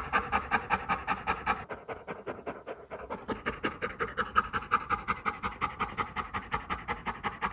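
Golden retriever panting rapidly, about five pants a second, winded from playing ball; the panting softens briefly a couple of seconds in, then picks up again.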